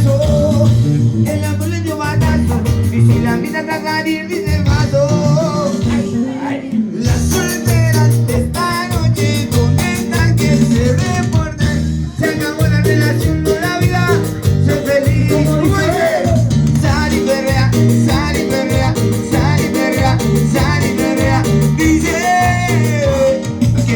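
A Latin-style song: a singing voice over a repeating bass beat, with a brief drop in the accompaniment about six seconds in.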